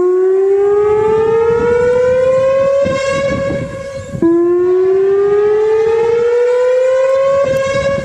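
Siren-style emergency alarm tone: a pitch that climbs slowly for about three seconds, holds briefly with a rough edge, then drops back suddenly and climbs again, twice over.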